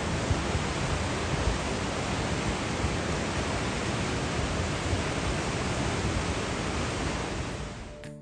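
Wind buffeting the microphone: a steady rushing noise with an uneven, gusty low rumble, fading out near the end.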